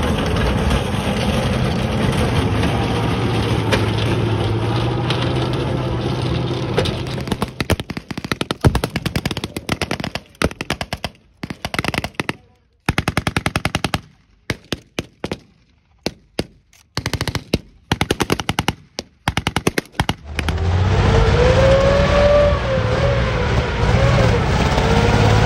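A tracked vehicle's engine and tracks run steadily. After about seven seconds come repeated bursts of rapid automatic gunfire with short pauses between them, blank-firing in a battle re-enactment. Near the end a tank's engine and running gear take over, loud, with a wavering whine.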